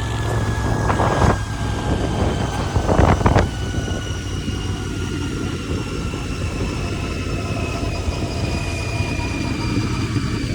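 Royal Enfield Continental GT 650's 648 cc parallel-twin idling through its stock exhaust, with two brief louder bursts about one and three seconds in.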